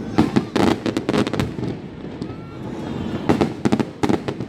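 Aerial fireworks going off in two quick flurries of sharp bangs and crackles, the first just after the start and the second near the end.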